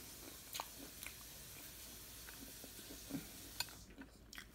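Faint chewing close to the microphone: a few small, scattered mouth clicks and crunches from eating fried popcorn chicken, over a low hiss that drops away near the end.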